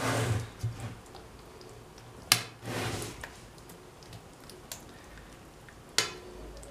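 A metal spoon spreading thick yogurt over chickpeas in a metal pan: short soft scrapes and wet squelches, with sharp clinks of spoon against pan about two seconds in and again near the end.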